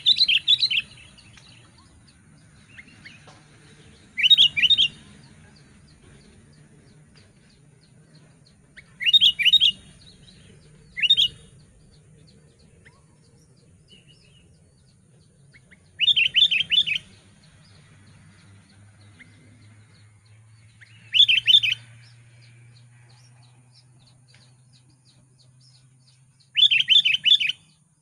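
Sooty-headed bulbul singing short phrases of several quick notes each, repeated every few seconds, about seven times.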